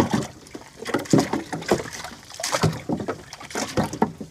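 Irregular knocks and clunks of gear being handled in a small fishing boat, about a dozen sharp strikes spread unevenly.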